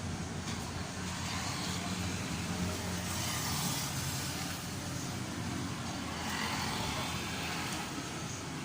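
Honda TMX125 Alpha's single-cylinder four-stroke engine idling steadily after a top overhaul, with a fast even putter.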